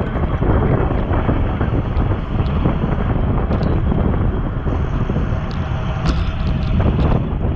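Wind buffeting the microphone of a bicycle-mounted action camera at riding speed: a loud, rough rumble with a few scattered short clicks.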